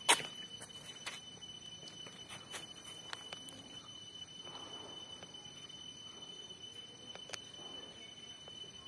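Quiet outdoor ambience: a steady high-pitched tone throughout, with a few scattered sharp clicks, the loudest one right at the start.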